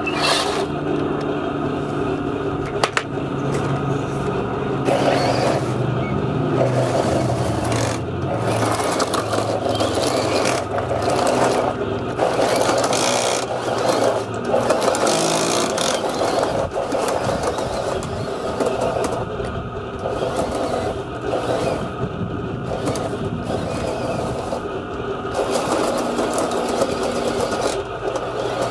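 Radio-controlled model tanks driving over loose pebbles: small electric motors and plastic gearboxes whirring, with a low hum that shifts in pitch, and the tracks scraping on the stones.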